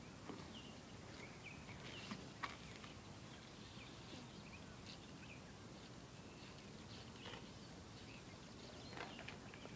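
Near silence: faint outdoor ambience with scattered faint bird chirps, and a couple of small clicks about two seconds in.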